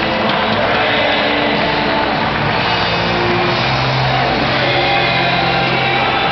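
Loud rock music playing, with a held low note in the second half.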